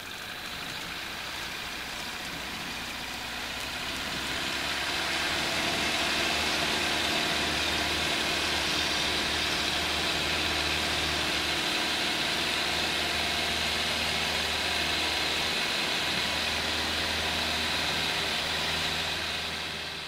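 Piper L-4 Grasshopper's four-cylinder air-cooled Continental engine and propeller opening up for the takeoff roll, getting louder over the first few seconds and then running steadily at full power; it fades out near the end.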